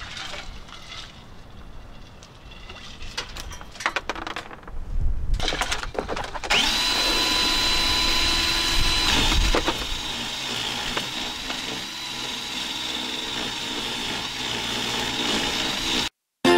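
Cordless drill spinning a Power Plucker rubber-finger attachment to strip feathers from a scalded chicken: handling clicks at first, then about six seconds in the drill starts with a steady whine that drops slightly in pitch a few seconds later as the bird is worked against the fingers, and it cuts off suddenly just before the end.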